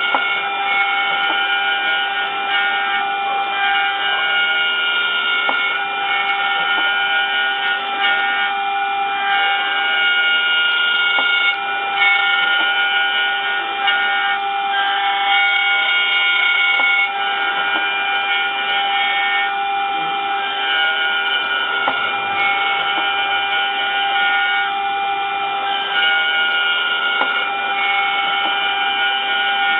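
Mini 5-axis CNC router running as it mills an impeller: a steady, high-pitched machine whine, with a constant lower tone under higher tones that shift pitch in steps every second or two.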